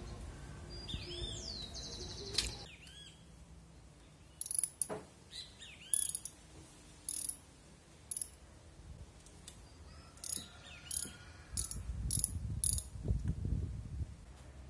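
Socket ratchet clicking in short bursts, about nine times from around four seconds in, as the bolts holding an engine's water chamber cover are undone.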